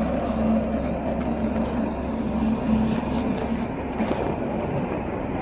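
A boat engine running steadily: a low rumble with a constant hum over it.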